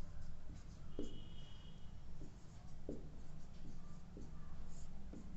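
Marker pen writing on a whiteboard: faint short strokes and light taps at uneven intervals, over a low steady room hum.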